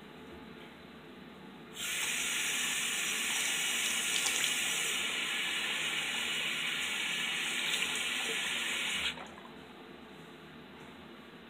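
Sink tap running steadily for about seven seconds, turned on about two seconds in and shut off abruptly.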